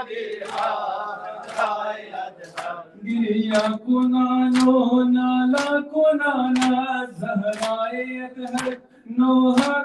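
A man's voice chanting a Shia noha (lament) through a microphone, holding long, drawn-out notes, over a sharp stroke that falls about once a second in time with the chant.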